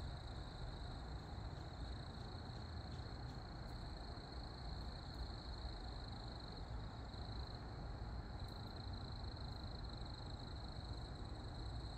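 Faint evening outdoor ambience: a steady high-pitched chorus, typical of distant frogs calling at dusk, over a low rumble.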